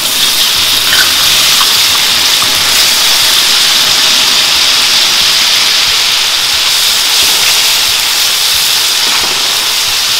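Diced onions and minced garlic frying in hot oil in a stainless steel wok: a loud, steady sizzle.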